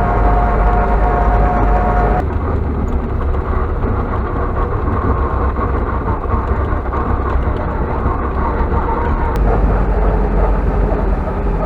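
T-40 tractor driving in sixth gear towing a trailer, heard from inside its sound-insulated cab: the air-cooled diesel engine runs with a deep rumble and the transmission whines. A steady whine stops abruptly about two seconds in.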